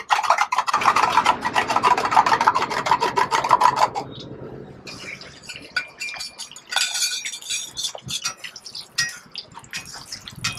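A metal spatula scraping and clanking against a pan as egg fried rice is stir-fried. The strokes come rapidly, several a second, for about the first four seconds, then turn into slower, scattered scrapes and clinks.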